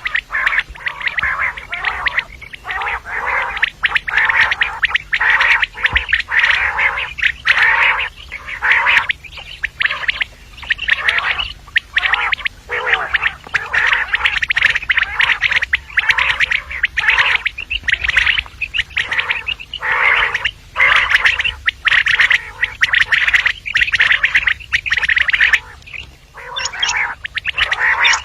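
Common quail calling over and over, short grating notes in quick succession, several a second, without a pause.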